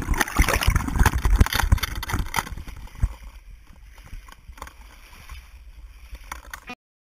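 Small boat on the water: irregular knocks and splashing over a low rumble. It is loud for the first three seconds, then quieter, and cuts off just before the end.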